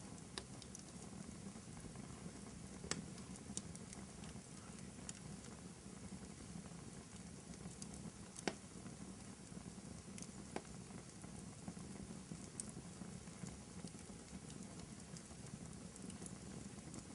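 Wood fire crackling in a fireplace: a steady low rush of burning with scattered sharp pops, the loudest about eight and a half seconds in.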